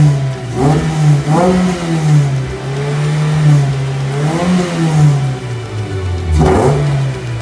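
Lotus Elise S1's 1.8-litre Rover K-series four-cylinder engine revving with the car stationary, held around 4,000 rpm with small throttle blips. It dips toward 3,000 rpm about six seconds in.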